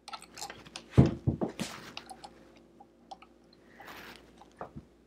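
Handling sounds of fingers working a toothed rubber lug belt onto a pulley inside a vintage Kenmore sewing machine: scattered clicks and scrapes of parts, with a couple of dull knocks about a second in.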